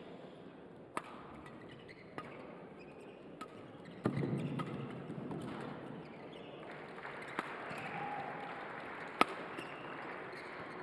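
Badminton rally: rackets striking the shuttlecock in sharp single hits every one to two seconds, with a louder rush of noise about four seconds in.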